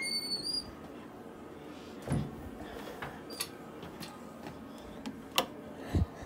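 Interior door being handled: a brief high squeak at the start, a dull thump about two seconds in, then a sharp latch click and a low thump near the end as the door shuts.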